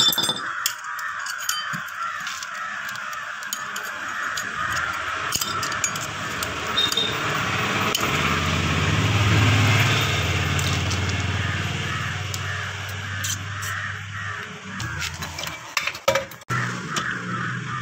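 Metal parts of a scooter's belt-drive pulley and clutch clink and knock as they are handled, over a steady chatter of birds calling. A low engine hum swells about eight seconds in and fades out around fourteen seconds.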